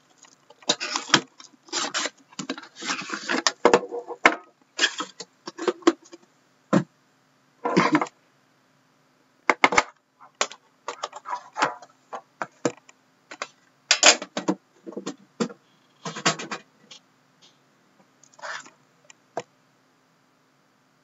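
Plastic shrink wrap crinkling and tearing, with cardboard scraping, as a sealed trading-card box is unwrapped and handled: irregular crackling rustles that stop about two seconds before the end.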